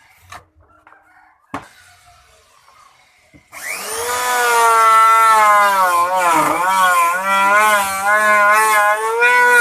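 Electric wood router (profile machine) switched on after a sharp click, running up about a third of the way in to a loud high whine whose pitch keeps dipping and recovering as the bit cuts into the wooden door panel.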